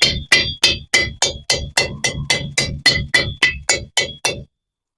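Soft-face dead blow hammer tapping a metal dust cap onto a new front wheel hub assembly, about three or four quick taps a second, each with a light metallic ring. The taps stop shortly before the end as the cap seats.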